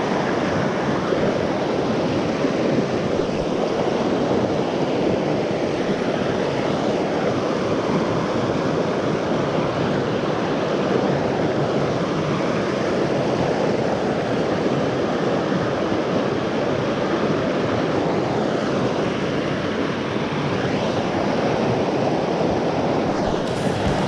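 Steady rushing of flowing water, an even, unbroken noise.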